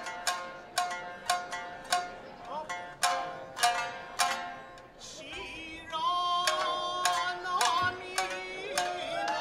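Traditional Japanese kabuki accompaniment: sharp plucked notes of a shamisen, roughly two a second, each dying away. About six seconds in, long held notes that bend in pitch join in.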